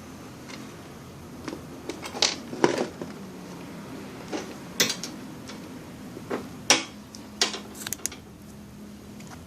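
Light, irregular clicks and metallic taps from multimeter probes and small tools being handled on the welder's circuit board while a resistor is measured, over a faint steady hum.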